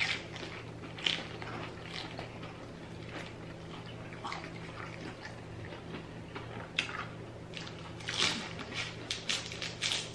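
Close-up chewing and crunching of deep-fried battered seafood: short crisp crackles of bites, scattered at first and coming thick and fast about seven to ten seconds in, with wet mouth sounds between.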